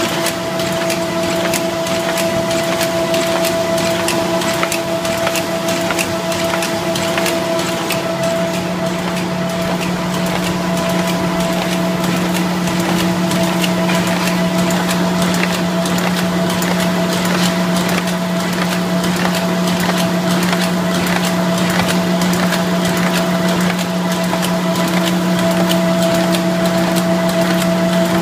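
Dingshung NIKKO Legato folder-gluer running at production speed: a steady machine hum under a fast, continuous patter of clicks and rattling.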